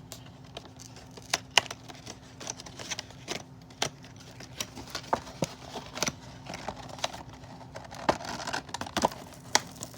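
A Barbie doll's cardboard and plastic retail box being opened by hand: a string of irregular sharp clicks and snaps, with brief crinkling and rustling of the packaging near the end.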